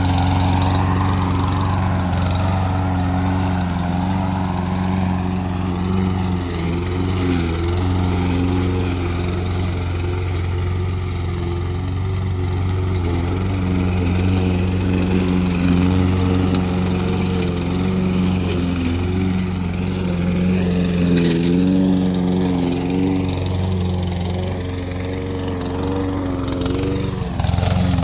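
Briggs & Stratton overhead-valve engine on a walk-behind lawn mower, running steadily at working speed with its pitch wavering slightly as the load changes. One short sharp click about three-quarters of the way through.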